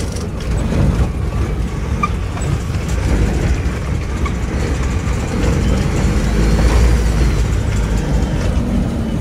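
Detroit diesel engine of a hopped-up International truck running hard, a deep steady drone that builds to its loudest about two-thirds of the way through.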